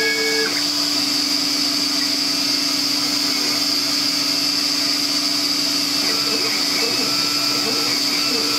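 Vacuum table's suction motor running steadily, holding the foam sheet down while the laser cuts, with short whining tones from the router's axis motors as the laser head moves: a brief held tone in the first half second and a few quick sweeps near the end.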